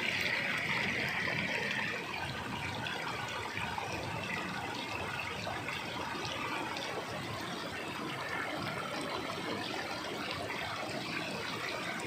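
River water rushing steadily over a dam, a little louder for the first two seconds.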